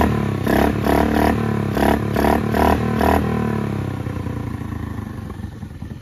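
Honda Navi's 109cc single-cylinder four-stroke engine revved through the new, improved Vance & Hines exhaust, in short quick blips about two a second. After about three seconds the engine speed falls back and it settles to a lower, steady idle.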